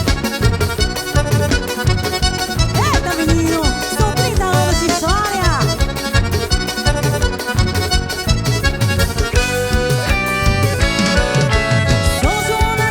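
Live band playing an upbeat festa junina instrumental passage: accordion melody and chords over a fast, steady drum beat and bass.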